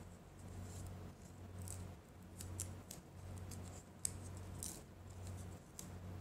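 Scissors snipping a few short cuts, probably through tape or paper, over a low hum that swells about once a second.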